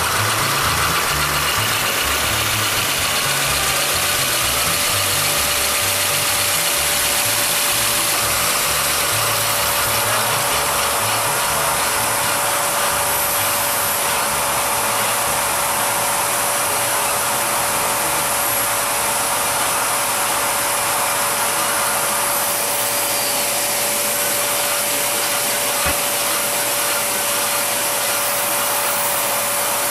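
Lego model steam engine with Walschaerts valve gear running on vacuum suction. Its plastic linkages and gears click and rattle over a steady rush of air, and a steady whine comes in about four seconds in.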